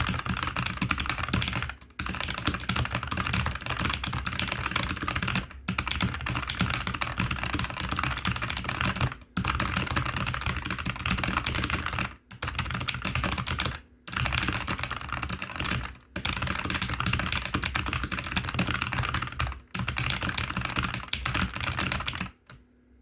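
Very fast typing on a Keychron K5 Max low-profile mechanical keyboard with Gateron Red low-profile linear switches: a dense, continuous clatter of keystrokes. It breaks off in brief pauses every few seconds and stops shortly before the end.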